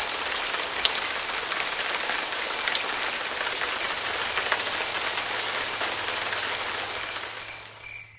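A mass of seeds pouring out of a chute onto a pile: a steady, rain-like rattling hiss with scattered small clicks, fading away near the end.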